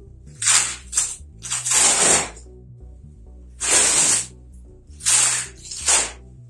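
Packing tape being torn off plastic bubble-wrap packaging in about six short ripping pulls, over background music.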